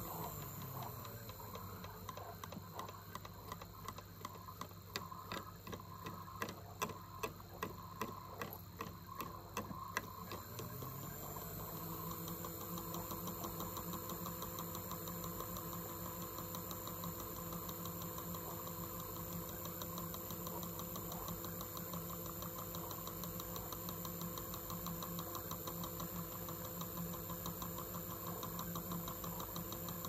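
Toy washing machine's small motor spinning the drum on its spin cycle, a steady hum that drops in pitch just after the start and climbs back up about eleven seconds in. There is a run of sharp clicks between about five and ten seconds.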